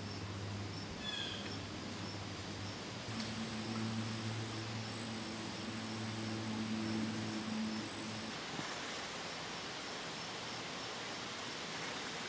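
Late-summer outdoor insect chorus: a faint steady pulsing insect song throughout, joined by a high, steady insect trill from about three seconds in to about eight seconds. A low steady hum sits underneath, stronger during the trill, and a brief falling call sounds about a second in.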